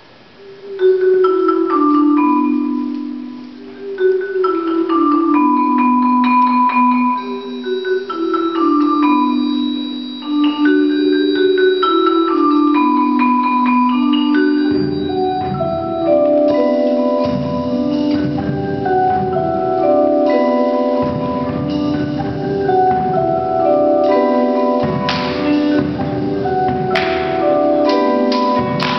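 Music with mallet percussion starts up: repeated runs of struck notes stepping downward, joined about halfway through by deeper, held low notes.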